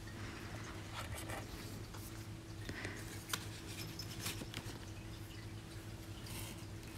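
Faint rustling and a few light ticks and taps as paper and small items in a cardboard box are handled, over a steady low hum.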